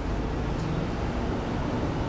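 Steady low background hum and rumble of room noise, with no distinct events.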